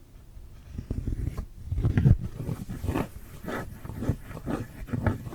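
Close-miked ASMR mouth sounds: a rapid, irregular string of wet clicks and smacks, busiest and loudest around two seconds in.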